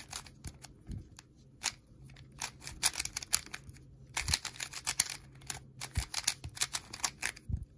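QiYi MS 3x3 magnetic speed cube being turned fast during a solve: quick bursts of sharp plastic clicks as its layers are turned.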